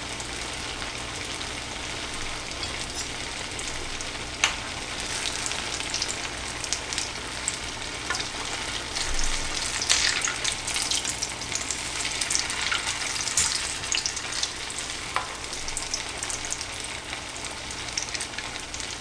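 Hot oil sizzling and crackling in a cast-iron skillet as pieces of potato dough fry in it, a steady hiss with dense crackle that grows a little busier about a quarter of the way in, and a few sharp pops.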